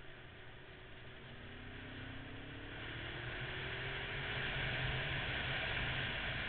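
Honda VFR800 motorcycle under way, recorded from the bike: its V4 engine note rises as it accelerates, and the wind rush grows steadily louder.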